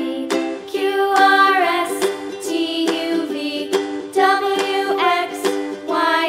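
Light, upbeat background music with a plucked, ukulele-like accompaniment and a bright melody line.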